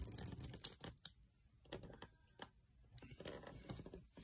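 Faint, irregular clicks and rustling: handling noise as a phone camera is moved about among pipework and foil insulation.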